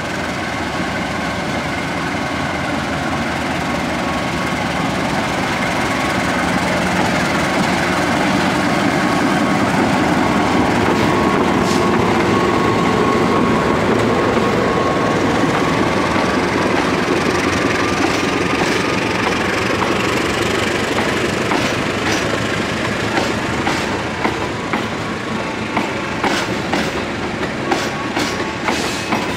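A diesel-electric locomotive hauling a passenger train approaches and passes, then the stainless-steel coaches roll by. Its sound builds to a peak in the middle, and in the last third the wheels click more and more over rail joints.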